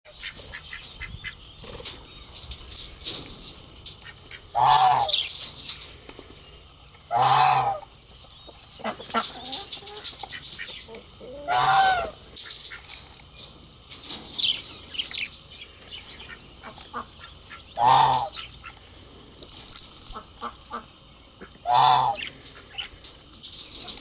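Budgerigars chirping softly, with many small clicks as they peck at bread and seed. Standing out above them are five loud, drawn-out calls, each lasting about half a second to a second and much lower in pitch than the budgies, coming from some larger animal.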